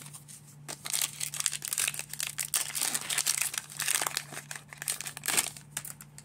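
Plastic wrapper of a Donruss baseball card pack being torn open and crinkled by hand. Irregular crackling starts about a second in and stops shortly before the end, with its sharpest bursts near the end.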